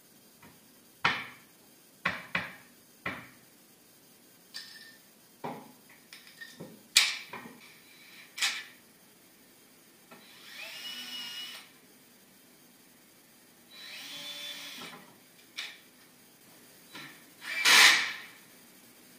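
Knocks and clatter of wooden drawer parts being handled, then a cordless drill-driver whirring in two short bursts, about ten and fourteen seconds in, as it drives screws into pine. A loud brief clatter comes near the end.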